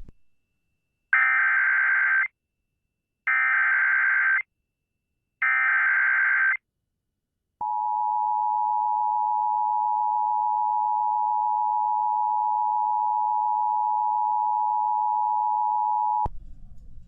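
Emergency Alert System activation tones: three one-second bursts of buzzing SAME header data tones, then the steady two-tone EAS attention signal (853 and 960 Hz) lasting about eight and a half seconds, which cuts off suddenly. Together they open a broadcast alert for a severe thunderstorm warning.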